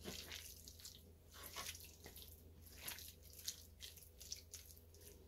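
Hands rubbing salt and pepper into raw chicken strips on a wooden cutting board: faint, irregular soft wet squishing and patting.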